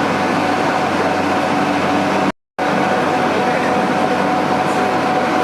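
Steady machine-shop noise from running machinery, with a constant whine held throughout. It cuts out completely for a moment a little over two seconds in, then carries on unchanged.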